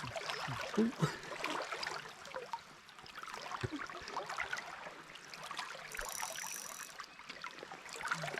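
Creek water trickling and splashing, with many small irregular splashes as someone wades through the shallow stream. A brief high-pitched patterned sound comes about six seconds in.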